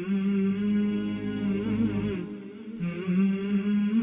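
Background vocal music: a single voice holding long, slowly wavering notes, chant-like, with a short break about two seconds in.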